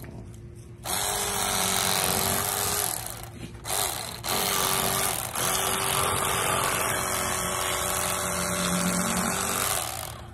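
A Rapala cordless electric fillet knife runs in bursts as its blades saw through a bluegill: a run of about two seconds, a short blip, then a long run of about five seconds with a brief break. It has a steady motor hum.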